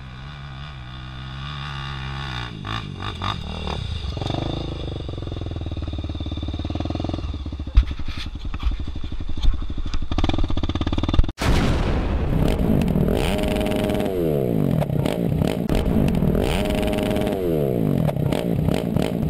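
Honda Tornado 293cc single-cylinder trail bike climbing the dirt hill, its engine growing steadily louder as it comes up the slope. After a sudden cut about eleven seconds in, the engine is louder and revs rise and fall over and over.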